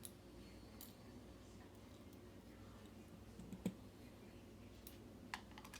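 Faint, scattered clicks of small brass lock pins and a metal tool being handled while a Yale mortise cylinder is gutted, the sharpest click a little past halfway and a quick few near the end, over near silence.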